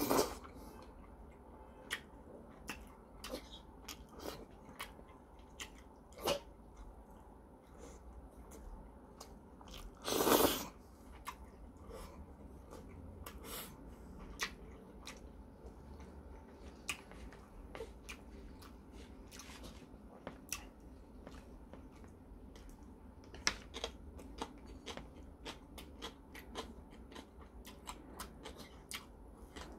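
Close-up mouth sounds of a person eating jjajangmyeon noodles in black bean sauce: wet chewing with many small sharp mouth clicks, and one louder, longer noise about ten seconds in.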